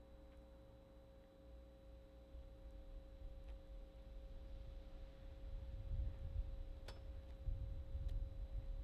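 A steady, pure held tone with fainter overtones, and a low rumble underneath that grows louder from about three seconds in. There are a couple of faint clicks near the end.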